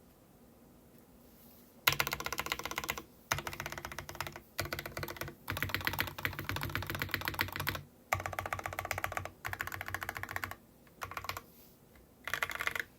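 Matrix 2.0add mechanical keyboard with 43Studios Popu switches in a top-mounted aluminium plate and GMK Rainy Day keycaps, being typed on fast. The key clacks start about two seconds in and come in several runs of a second or two each, with short pauses between them.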